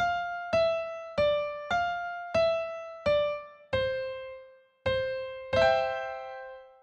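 Background music: a slow electric piano melody of single notes, each struck and left to fade, stepping gently downward in pitch, with a fuller chord near the end.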